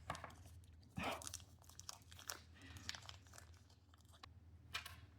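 Faint rustling and crinkling of packaging being handled, with a few small clicks and taps: about a second in, twice near the middle, and near the end.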